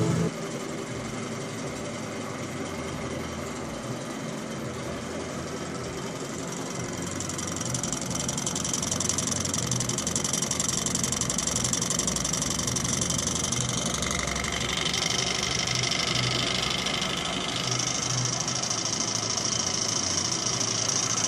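Model Stirling hot-air engines running: a fast, even mechanical clatter of pistons, connecting rods and flywheel bearings. The running gets louder about a third of the way through, and a higher whirr joins past the middle.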